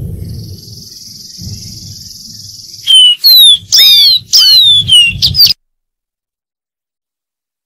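Dark-throated seedeater singing: a high buzzy trill held for about three seconds, then a quick run of loud, clear, down-slurred whistled notes that stops abruptly about five and a half seconds in. A low rumble sits beneath the song.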